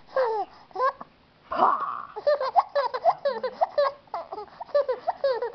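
Baby laughing: a few short vocal sounds, then from about two seconds in a long run of quick, short chuckles.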